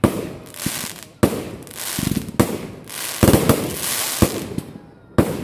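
Aerial fireworks going off in quick succession: a string of sharp bangs, about seven, each followed by a hissing, crackling tail as the bursts spread.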